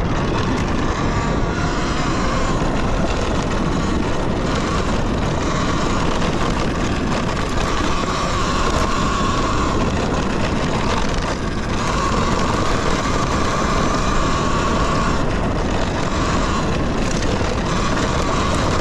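Talaria Sting electric dirt bike ridden on a dirt trail: wind rushing over the microphone and tyre and chassis noise, with the electric motor's whine coming and going several times with the throttle.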